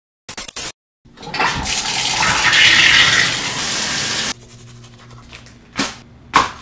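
Shower head spraying water: a steady hiss that builds over the first second or so and cuts off abruptly a little past the middle. Then quiet room hum with a couple of sharp knocks.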